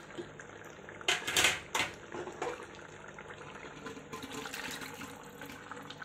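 Paya stock (yakhni) being poured into a pot of masala-fried beef trotters: a few short splashing bursts about a second in, then a faint steady pour.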